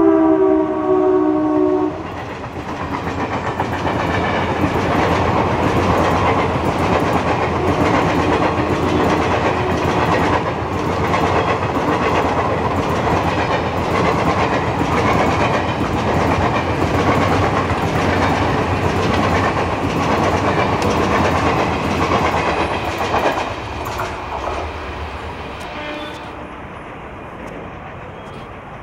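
An Indian Railways diesel locomotive's horn sounds for about two seconds as the locomotive passes close. Its passenger coaches then rush past with a fast clickety-clack of wheels over rail joints, which fades away after about 23 seconds as the train recedes.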